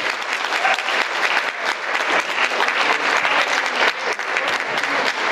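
Audience applauding, many hands clapping steadily together.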